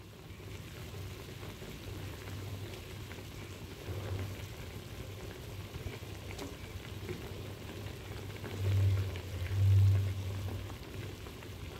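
Thick lentil-dumpling curry bubbling at a rolling boil in a pan, a steady crackling, bubbling hiss. Two louder low rumbles come about nine and ten seconds in.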